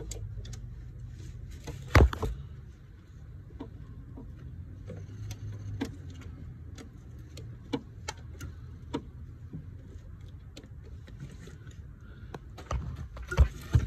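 A wrench clinking and knocking on metal while breaking loose a starter mounting bolt on a 1998 Ford Contour: scattered sharp clicks, with a loud knock about two seconds in and two more near the end, over a steady low hum.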